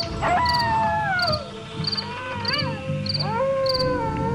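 Horror sound-effect bed: crickets chirping in a steady rhythm, about one chirp every two-thirds of a second, under slow eerie wailing tones that slide down, waver and rise again, over a low drone.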